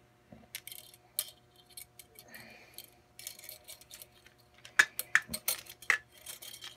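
An AR-15 buffer spring being handled and pushed into the rifle's buffer tube: the steel spring coils rattle and scrape against the metal, with a few sharper metallic clicks about five seconds in.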